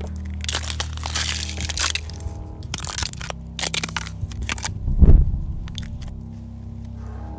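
Irregular crunching, likely footsteps on gritty ground, over a steady low drone. A deep boom lands about five seconds in.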